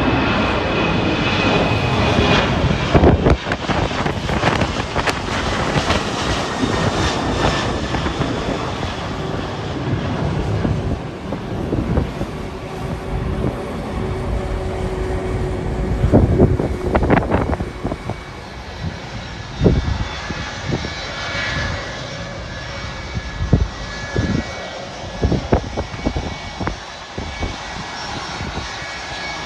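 Jet airliner engines running as a plane goes by: a steady rush with high whining tones, growing quieter after about eighteen seconds. Gusts of wind thump on the microphone throughout.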